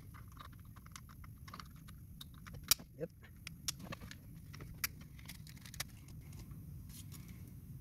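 Scattered light plastic clicks and rattles as wiring connectors are handled and pushed onto a replacement steering-column clock spring, a few sharper snaps standing out, over a steady low hum.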